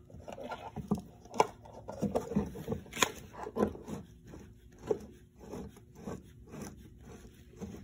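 Plastic lawnmower wheel being worked back onto its axle by hand: irregular scraping and rubbing with scattered clicks, the sharpest about a second and a half in and again about three seconds in.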